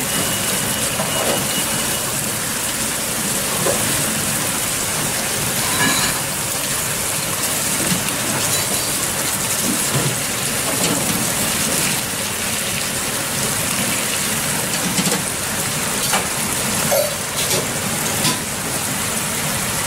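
Pork pieces sizzling in a thick, bubbling sauce in a frying pan over a gas burner, a steady hiss as the sauce reduces to a glaze. Now and then metal tongs click lightly as they turn the meat.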